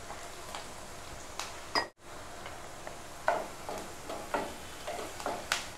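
Chopped onions and a bay leaf sizzling in oil in a non-stick frying pan, with a wooden spatula scraping and tapping against the pan now and then as they are stirred. The sound cuts out briefly about two seconds in.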